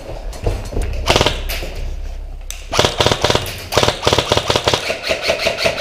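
Airsoft electric rifle (AEG) firing rapid full-auto bursts, a fast even clatter of shots: one burst about a second in, then repeated bursts from about the middle onward.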